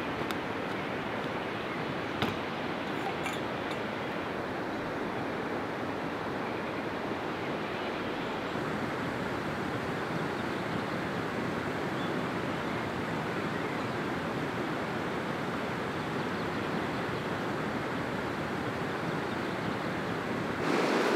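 Shallow mountain river rushing steadily over stones and small rapids.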